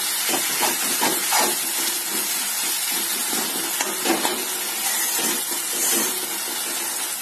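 Onion, tomato and spice masala sizzling in hot oil in a kadai over a high flame, being fried down, with a spatula stirring and scraping through it in irregular strokes.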